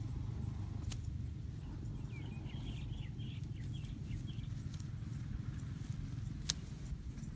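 A long-handled digging tool knocking into the ground of a muddy bank, a couple of sharp strikes, about a second in and near the end, over a steady low rumble. A short run of high chirps comes a couple of seconds in.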